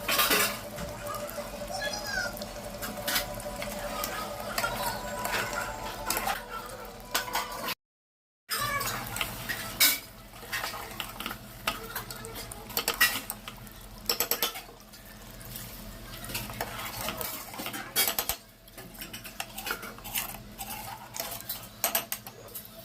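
A metal spoon clinking and scraping against a cooking pot as chicken curry is stirred, in irregular knocks and scrapes. The sound cuts out briefly about a third of the way through.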